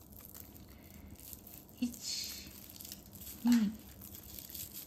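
Polyethylene raffia (suzuran) tape crinkling and rustling as it is pulled through a crochet hook to make chain stitches. A short spoken word about three and a half seconds in.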